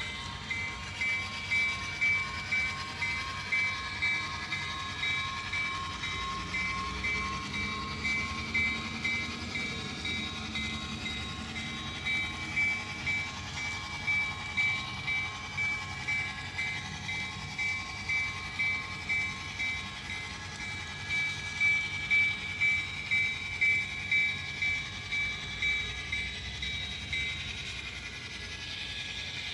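Model locomotive running with its DCC sound decoder playing train sounds: regular beats about twice a second over steady high tones. The beats fade out near the end.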